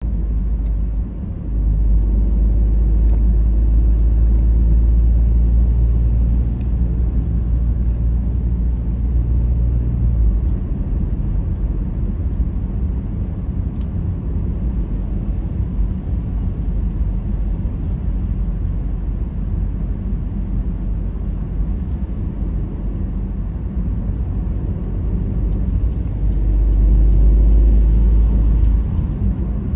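A car being driven, its engine and tyres making a steady low rumble. The rumble is heaviest for roughly the first ten seconds, eases off, then grows heavy again near the end.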